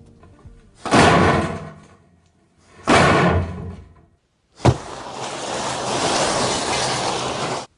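Two heavy slams, each dying away over about a second. Then a sharp crack sets off a steady rushing hiss that stops abruptly near the end.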